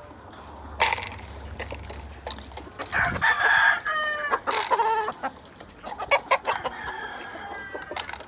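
A rooster crowing: one loud, drawn-out crow starting about three seconds in and lasting about two seconds, with a fainter call near the end. A few sharp clicks are scattered through it.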